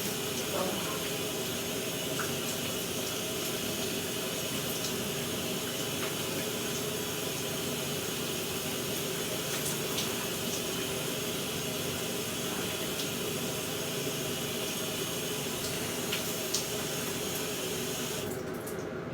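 Shower water running steadily, an even hiss of spray with a few faint knocks. The high part of the hiss cuts off suddenly near the end.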